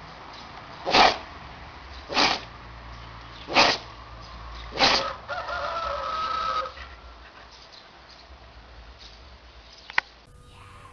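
An animal sneezing four times in a row, about one sneeze every second and a quarter, followed by a drawn-out pitched sound lasting about a second and a half. A single sharp click comes near the end.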